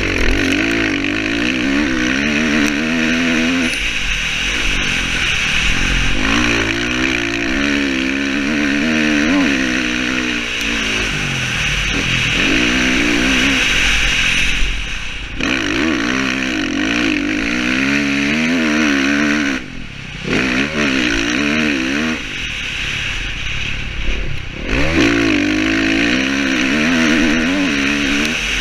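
Dirt bike engine revving up through the gears and backing off, over and over, heard from a helmet-mounted camera; the pitch climbs in repeated steps and falls away when the throttle comes off.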